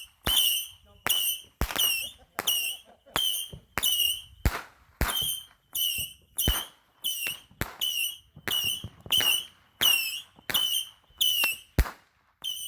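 Firework battery firing a rapid, even series of whistling shots, just under two a second, each a sharp crack with a short high whistle.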